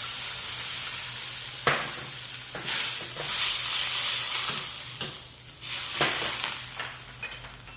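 Sauce sizzling in a hot wok while a metal ladle stirs and scrapes through it, with a few sharp clicks of the ladle against the wok. The sizzle dies down near the end.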